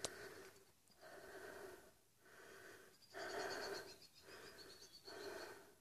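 A hiker's heavy breathing close to the microphone, in and out about once a second. She is winded from a steep climb up a rocky slope.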